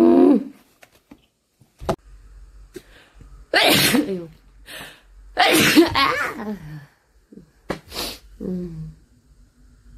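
A young woman with allergic rhinitis sneezing twice, a couple of seconds apart. Each is a loud, sudden burst with a voiced tail falling in pitch. Two softer, short sounds follow near the end.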